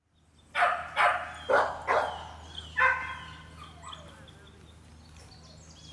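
A dog barking five times, about half a second apart, then birds chirping over a steady low hum.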